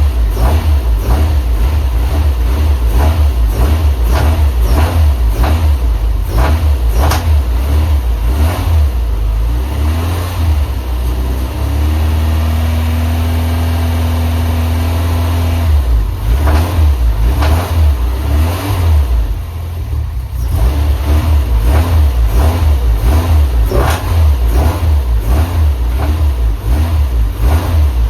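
Honda Civic EK4's B16A four-cylinder engine running and being revved in repeated quick blips, held at a steady, slowly rising speed for a few seconds about midway, then blipped again.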